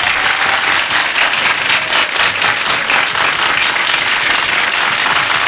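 Audience applauding, a dense, steady clapping that follows the presenter's introduction.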